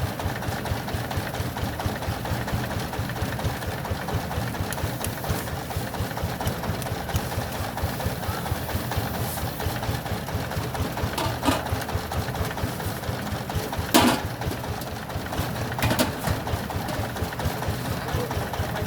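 A small engine running steadily with a fast, even chug, with a few sharp knocks, the loudest about two-thirds of the way in.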